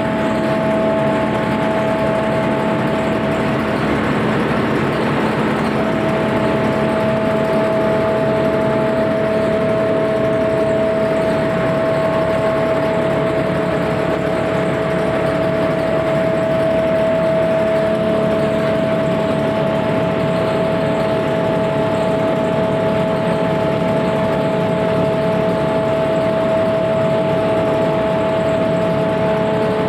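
A sawdust grinder (wood grinding machine) running steadily: a constant mechanical rush with a steady whine over it.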